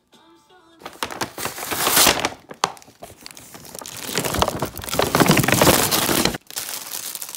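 Plastic packaging crinkling and rustling as items are handled and pulled out of a bag, loud in two long stretches and cutting off abruptly about six seconds in, then quieter handling.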